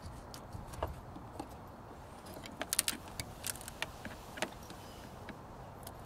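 Screwdriver loosening the hose clamp on a car's air intake duct: scattered small metallic clicks and taps, with a quick cluster of them about three seconds in.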